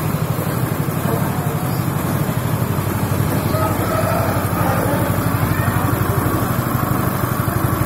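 Dry coffee hulling machine running steadily: a low drone with a fast, even pulse.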